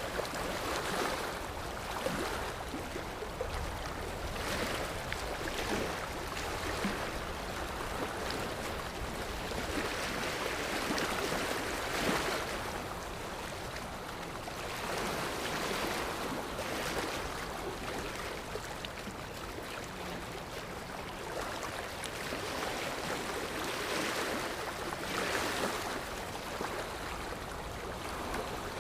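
Sea waves washing in and drawing back, a continuous rush of surf that swells and fades every few seconds.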